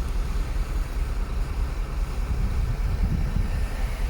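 Heavy diesel earthmoving machinery running: a steady, deep engine rumble.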